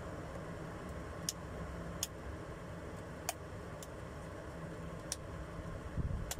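Midea personal blender's motor running with a steady low hum while the jar of fruit chunks is held down on the base, with sharp clicks every second or so from the chunks knocking in the jar, and a low thump at the very end.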